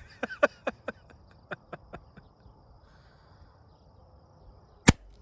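A run of about eight short chirping calls fading over the first two seconds, then a single sharp crack near the end: a .25-calibre PCP air rifle firing a slug at a prairie dog, offhand.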